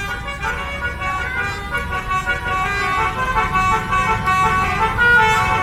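A bus's basuri telolet horn, a set of electric trumpets playing a melody of short notes that step quickly from pitch to pitch, over a low rumble.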